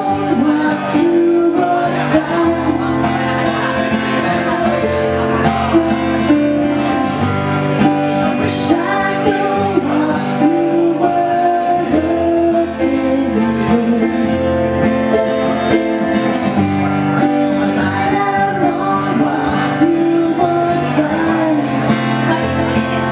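A woman singing to a strummed acoustic guitar, a live performance.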